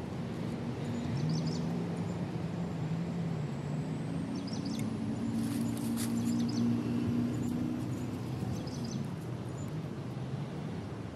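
Low engine drone whose pitch shifts slightly, with short bird chirps now and then.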